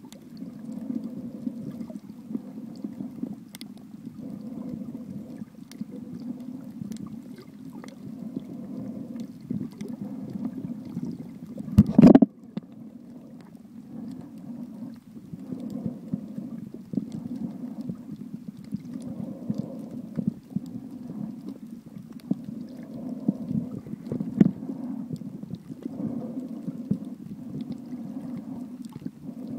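Muffled sloshing and gurgling of sea water around a camera held at and just below the surface, a steady low rumble that swells and ebbs. A single sharp thump about twelve seconds in.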